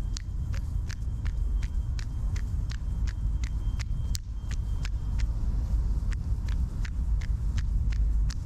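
A runner's footsteps striking the pavement at an even running cadence of about three strides a second, over a steady low rumble of city traffic and wind.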